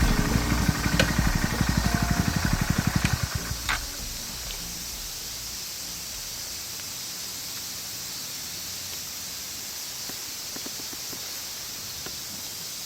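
Honda Monkey 125's single-cylinder engine idling with an even, pulsing beat, then switched off about three and a half seconds in. After that, only a steady faint outdoor hiss.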